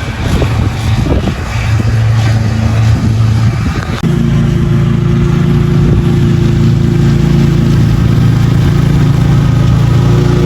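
Lawn mower engine running, changing about four seconds in to a steadier, even hum.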